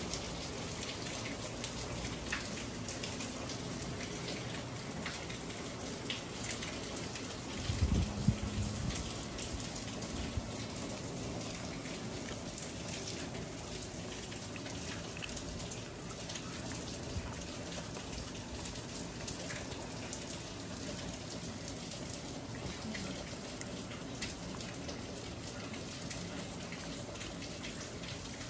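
Light rain falling steadily, with many separate drops ticking on surfaces close by. About eight seconds in, a brief low thump stands out above the rain.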